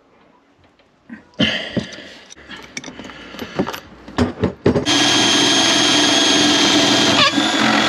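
A series of knocks and clinks as an adjustable spanner works the metal plumbing fittings, then a Makita cordless drill runs steadily for about three seconds from near the middle.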